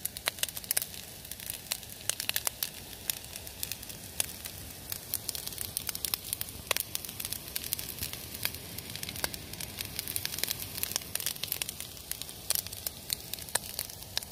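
Rice frying in a pan on a canister gas stove: a steady sizzle full of small, irregular crackles and pops.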